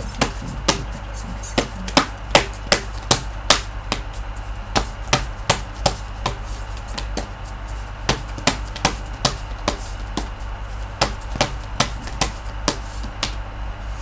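A deck of Whispers of Love oracle cards being shuffled by hand: a quick, uneven run of sharp card slaps and taps, about two or three a second, over a steady low hum.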